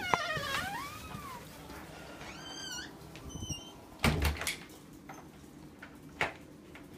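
A pet's high whining cry that rises and falls in the first second or so, followed by short squeaks, then a door thudding shut about four seconds in.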